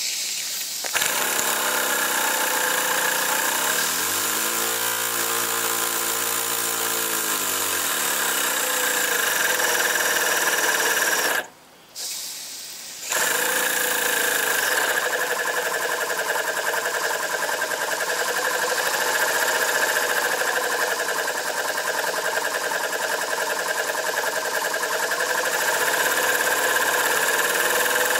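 Small brass twin-cylinder single-acting model steam engine running at high speed on wet steam: a fast, even whirr with steam hissing from the loose piston-valve gland. A few seconds in, its pitch rises and falls once. About halfway through it cuts out for a second or so, then picks up again.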